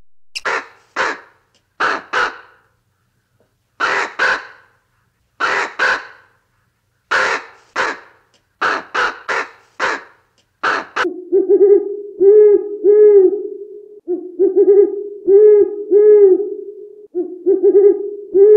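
A crow cawing: about a dozen and a half harsh calls, mostly in pairs. About eleven seconds in, an owl takes over with deep hoots repeated in phrases roughly every three seconds.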